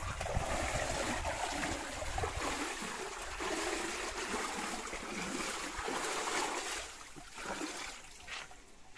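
Small mountain river rushing steadily, with some wind on the microphone at first. The rush falls away about seven seconds in, leaving a few light knocks.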